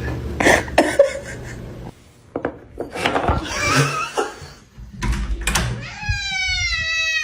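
A few scattered knocks and thumps, then about six seconds in a cat starts a long, drawn-out meow that slowly falls in pitch.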